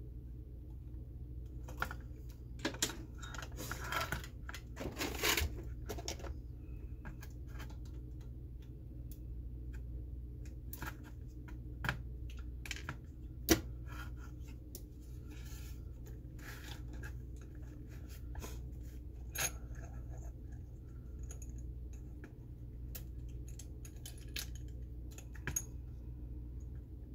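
Scattered light clicks and taps as a circuit board and soldering iron are handled on a workbench, with a brief rustling scrape about four to six seconds in and one sharp click about halfway, over a steady low hum.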